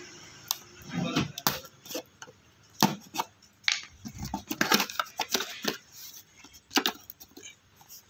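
Cardboard parts box being opened: a screwdriver slits the packing tape, then the flaps are pulled open and the plastic wrapping inside is handled. The sound is a string of irregular sharp scrapes, taps and crinkles.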